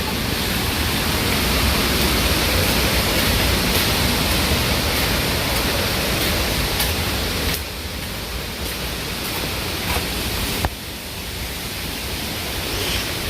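Strong gusty typhoon wind rushing, with low rumbling buffeting on the microphone; the gust eases about seven and a half seconds in and drops again near eleven seconds.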